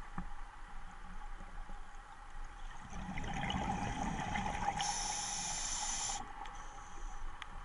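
Scuba regulator breathing underwater: a rush of exhaled bubbles starts about three seconds in and lasts about three seconds, with a high hiss near its end.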